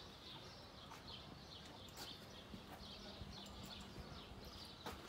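Faint birds chirping: many short high chirps in quick succession over low outdoor background noise.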